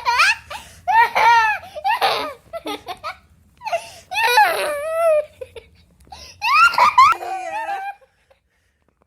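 A young girl laughing and squealing in repeated bouts as she is tickled, the laughter stopping about eight seconds in.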